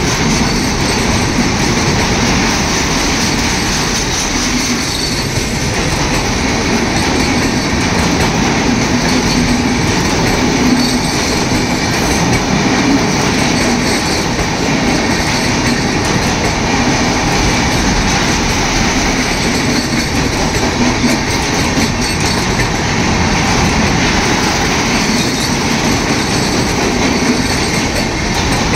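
Coaches of an Indian Railways express train running past close by at about 120 km/h: steel wheels on the rails make a loud, steady rush and clatter.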